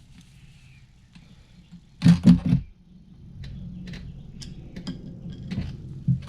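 Metal knocks and clicks of tools and parts being handled at a truck's front wheel hub. A loud cluster of three or four sharp knocks comes about two seconds in, then scattered light clicks and ticks.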